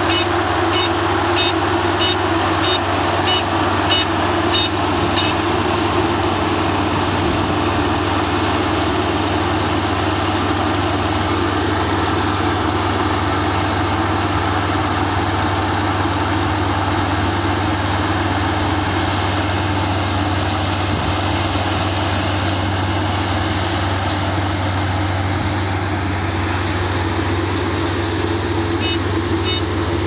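Kubota ARN327 rice combine harvester running steadily under load with a constant low engine drone. A high pip repeats about twice a second for the first few seconds and again near the end.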